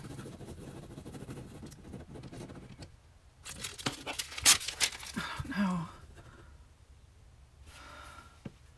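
A pen scribbling scratchily on a notepad, then a few sharp rips and paper rustles, loudest about four and a half seconds in, as the scribbled sheet is torn off the pad. A brief hum from the person near the rips, and faint pen scratching again near the end.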